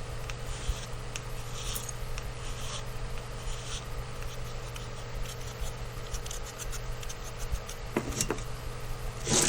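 Light scratchy strokes of hand-shaping a pipe stem's rebuilt button, with a few small clicks near the end and a short louder scrape at the very end, over a steady low hum.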